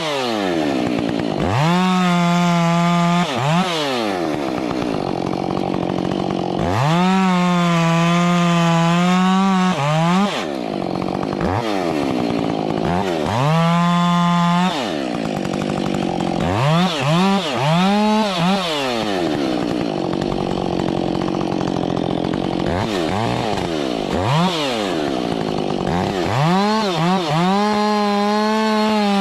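Chainsaw engine revved up and down over and over: it climbs to full speed and holds there for a second to three seconds at a time, with quick short blips between, and drops back toward idle in between.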